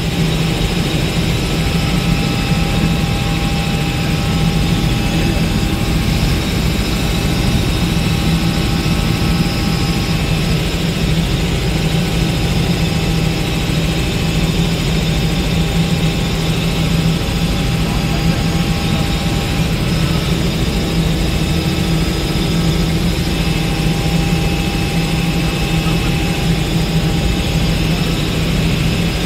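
Robinson R66 Turbine helicopter in cruise, heard from inside the cockpit: a steady low rotor beat with several thin, steady whining tones above it.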